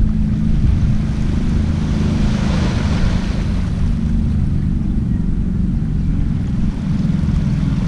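Harbour shore ambience: wind on the microphone and small waves lapping the shore over a steady, low engine hum.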